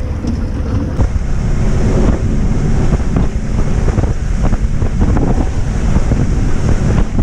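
Heavy wind buffeting the microphone on a fishing boat running at speed, with the rush of water and the boat's motor underneath.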